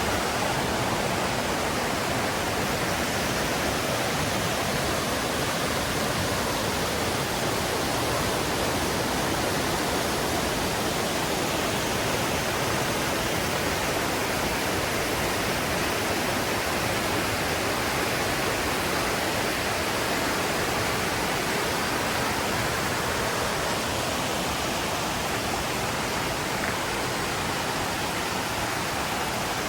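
Mountain river rushing over rocks: a steady, even roar of flowing water with no breaks.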